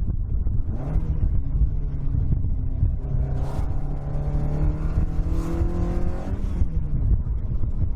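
Toyota AE86 Sprinter Trueno's swapped-in 5-valve (AE101-type) 4A-G engine heard from inside the cabin while pulling under acceleration, over road rumble. The engine note steps with a gear change about a second in, climbs steadily from about three seconds, then drops with the next gear change near the end.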